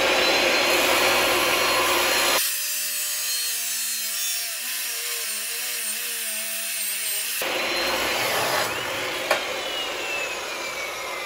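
Makita abrasive chop saw (cut-off saw) running with a steady whine, then its wheel grinding through quarter-inch-wall steel for about five seconds, throwing sparks. Near the end the trigger is released and the whine falls as the wheel spins down.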